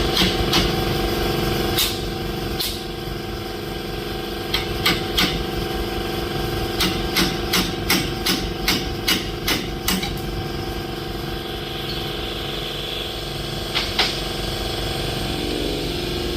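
Hammer blows on a steel punch, driving a dowel pin out of a camshaft: sharp metallic hits, a few spaced apart, then a quick run of about a dozen at roughly three a second, and two more near the end. A steady machine hum runs underneath.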